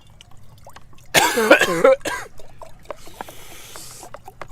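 A person coughing hard about a second in, a rough cough lasting under a second, followed right after by a shorter one. Later there is a second of breathy hiss.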